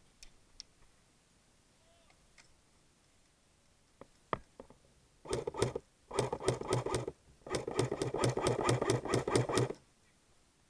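Airsoft gun firing on full auto in three bursts, a short one and then two longer ones, a rapid clicking over a mechanical whirr.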